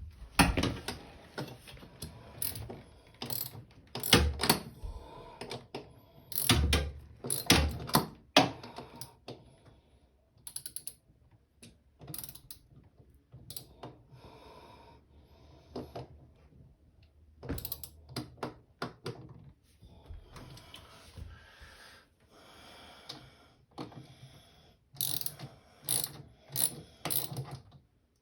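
Irregular metallic clicks, rattles and knocks of hand work on an LG direct-drive washer's motor stator as it is fitted and bolted onto the tub. The sounds come in clusters, busiest in the first several seconds and again near the end.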